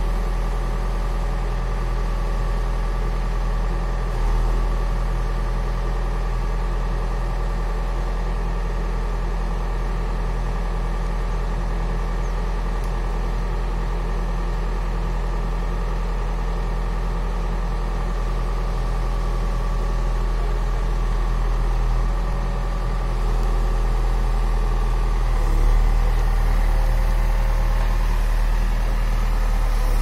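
Cat 424B backhoe loader's diesel engine running steadily at a low, even idle, getting a little louder near the end.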